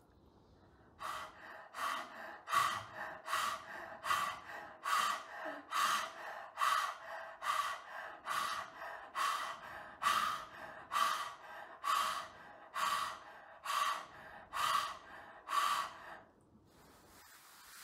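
Rapid, even panting through the wide-open mouth with the tongue stuck out: the simha kriya (lion breath) yoga practice. Short forceful breaths go in and out at about two strokes a second. They start about a second in and stop a little before the end.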